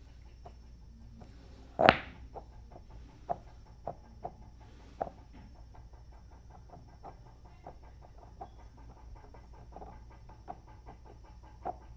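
A stone bound in a jute-twine harness, dragged by a slowly winding motor, clacks sharply once against river stones about two seconds in as it tumbles forward, then knocks softly against them a few more times. Under it runs a steady train of faint ticks from the motor's slow pulses.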